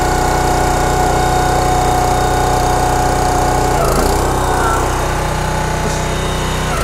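Engine of a PLOW GLS30 30-ton hydraulic log splitter running steadily, driving the hydraulic pump. About four seconds in the higher tone changes as the ram extends and presses against a pressure gauge.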